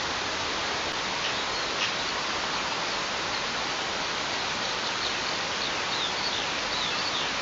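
Steady outdoor hiss, with a small bird's faint, quickly repeated high, down-slurred calls in the second half.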